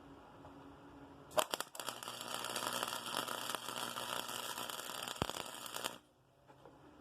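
MIG welder arc crackling steadily as a weld bead is run for about four and a half seconds, striking about a second and a half in and cutting off suddenly near the end.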